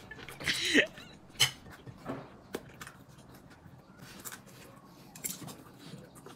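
Eating sounds: scattered short mouth clicks and smacks of someone chewing, with a brief bit of voice about half a second in.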